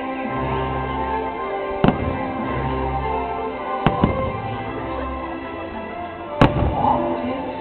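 Fireworks bursting over the show's music, which has sustained notes and a low bass line. One sharp bang comes about two seconds in, two close together around four seconds, and the loudest about six and a half seconds in.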